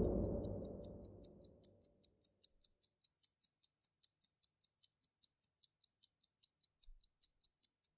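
The tail of a deep boom dies away over the first second or so, leaving a faint, fast, even ticking of about five ticks a second, with a soft low thud near the end.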